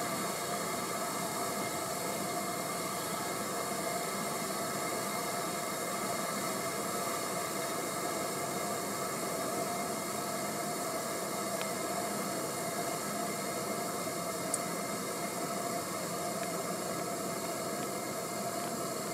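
Gas canister stove burner hissing steadily under a camping kettle as the water heats.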